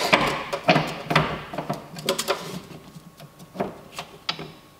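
Steel tape measure pulled out and held against a coilover, its blade and case rattling and clicking: dense for the first couple of seconds, then a few scattered ticks.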